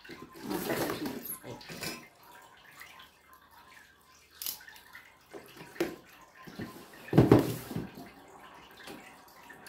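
Cardboard box being opened by hand: tape and flaps scraped and rustled, with a few short clicks and a louder rustling knock about seven seconds in.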